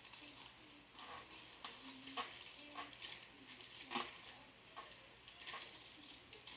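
Faint scattered crinkles and light taps from handling the hovercraft's plastic trash-bag skirt while checking it for holes. The sharpest tap comes about four seconds in, with a few brief low hums in between.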